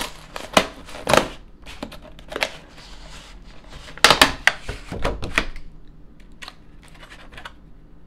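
Thin clear plastic clamshell tray crackling and snapping as it is handled and pried open by hand: a run of sharp clicks and crinkles, loudest about four to five and a half seconds in, then thinning out.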